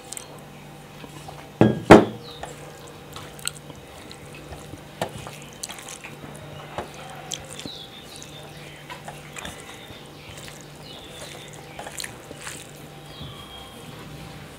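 A brass bowl is set down on the table with two loud knocks about two seconds in. Then come soft, wet squelching and small clicks as a hand mashes masoor dal into rice.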